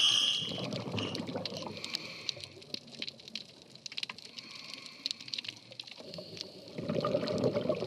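Underwater sound of a scuba diver's breathing, with exhaled bubbles gurgling out loudest near the end, over a steady crackle of tiny clicks.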